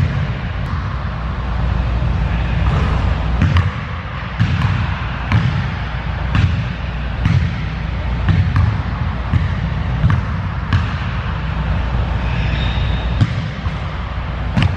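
Basketball bouncing on a hardwood gym floor, about one bounce a second at an uneven pace, as it is dribbled and shot around. A steady low hum runs underneath and drops away near the end.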